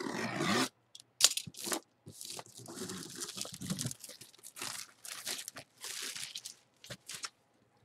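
Plastic shrink-wrap being torn and crinkled off a cardboard box by hand, in irregular bursts of tearing and crackling.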